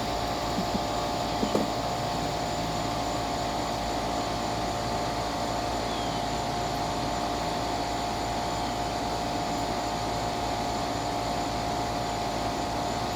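Steady machine hum with a constant high whine and a hiss over it, unchanging throughout; a few light clicks sound in the first two seconds.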